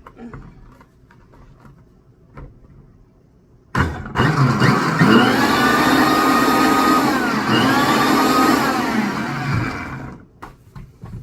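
Electric kitchen blender switched on about four seconds in, its motor spinning up in pitch and then running steadily for about six seconds before winding down. A few light knocks come before it.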